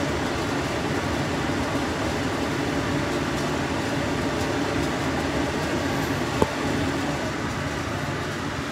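Steady fan-type hum, with one sharp click about six and a half seconds in.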